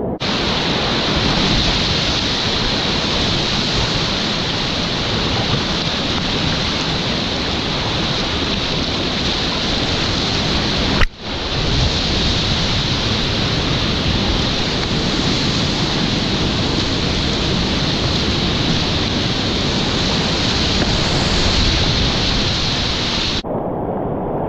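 Whitewater rapids rushing loud and steady, close to the water. The sound breaks off for an instant about 11 seconds in, then resumes just as loud.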